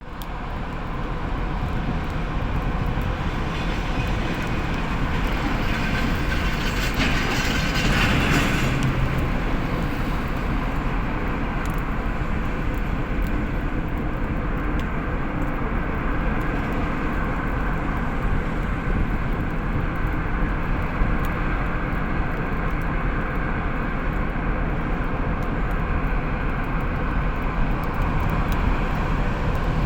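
Heavy cargo ship machinery running steadily during cargo discharge, a constant mechanical drone with a steady hum, swelling louder and hissier for a couple of seconds about seven seconds in.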